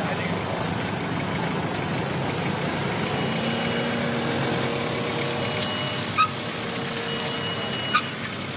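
Jet engines of Air Force One, a Boeing 747, running as it taxis: a steady rushing noise. Short high steady beeps come and go through the second half, and two sharp clicks sound near the end.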